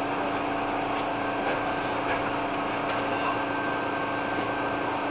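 Hankyu 8000-series electric train creeping toward the buffer stop at a terminus platform, heard from inside the cab behind the front window: a steady running hum with a few steady tones.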